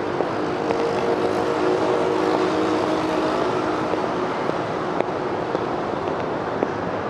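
Busy city street traffic: a steady noise of passing motor vehicles, with one engine's hum standing out over the first four seconds or so.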